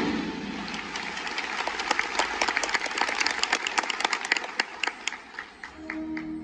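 Audience applause in a large hall, with sharp individual claps close by, thinning out and dying away about five seconds in. Near the end a band starts a soft, sustained chord.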